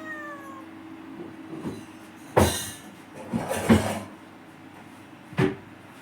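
A brief falling meow at the very start, followed by three loud knocks or bumps about two and a half, three and a half and five and a half seconds in.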